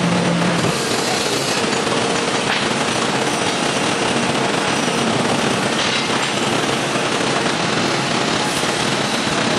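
Horizontal paper-and-plastic baler running: a loud, steady mechanical clatter, with a low hum that stops shortly after the start.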